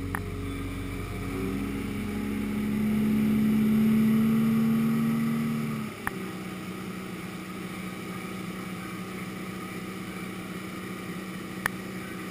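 Boat running at speed on a 300 hp outboard motor: a steady rush of engine and water. A few sharp clicks come through, one about six seconds in and one near the end.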